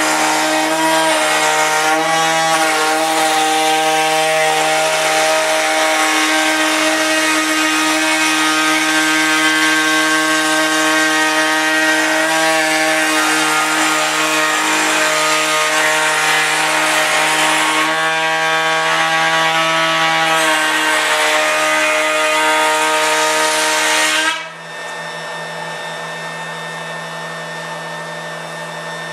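A woodworking power tool cutting wood, with a steady motor whine under a loud cutting hiss. About 24 seconds in the cut ends and the machine keeps running freely, more quietly.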